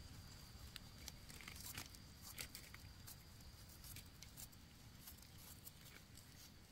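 Near silence with faint, scattered small clicks and scrapes from hands and a small knife digging an egg-stage Amanita mushroom out of soil and leaf litter and scraping dirt off its base.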